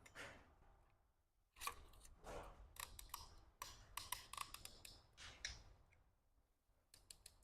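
Faint, irregular metallic clicks and light scraping from hands working an oiled piston and its piston rings, with a quiet pause near the end before a few more ticks.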